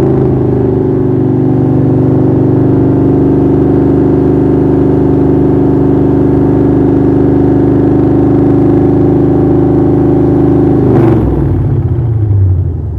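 Car engine held at steady high revs for a datalog rev test for a tune. About eleven seconds in, the throttle is let off with a brief sharp burst, and the revs fall away toward idle.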